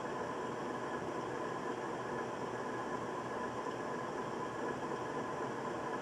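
1999 Casablanca Veranda 50-inch ceiling fan running steadily on bearings that are in poor shape: an even whir with a faint high hum running through it.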